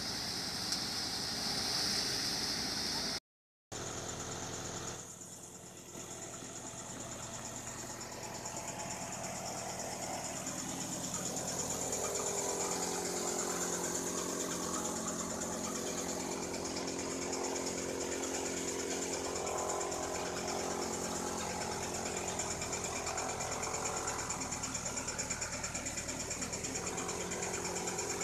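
Tractor-driven crop thresher, belt-driven from the tractor's shaft, running steadily with a continuous mechanical drone and hum. The sound drops out for a moment about three seconds in, then the drone resumes and grows louder.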